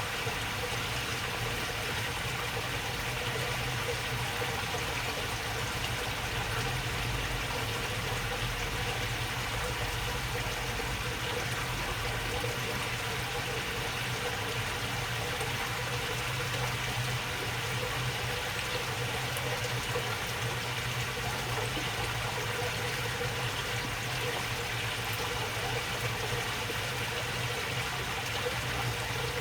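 Water babbling steadily as it flows along a shallow channel, with a steady low hum beneath it.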